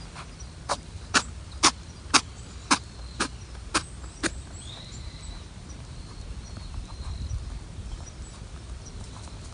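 A rabbit sneezing eight times in quick succession, about two sharp sneezes a second, stopping a little over four seconds in.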